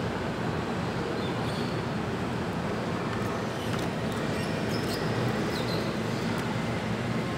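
Steady background rumble and hiss, with a few faint clicks of plastic toy parts being handled.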